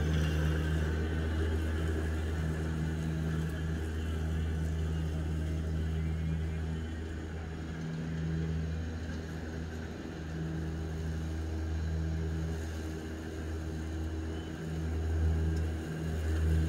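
EGO battery-electric zero-turn mower running across a lawn: a steady low electric hum with a few steady tones above it, growing a little louder near the end as it approaches.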